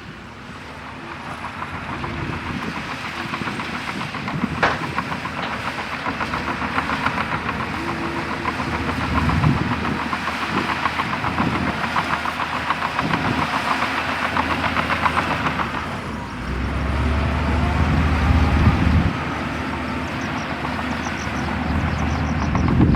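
Crawler bulldozer running, its steel tracks clanking in a fast, even rhythm. The diesel engine's low rumble grows heavier for a few seconds past the middle, as under load.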